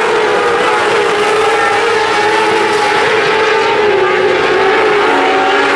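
Several 600cc micro sprint cars' motorcycle engines running hard together, their pitches rising and falling as they work around the dirt oval, with one dropping in pitch about five seconds in.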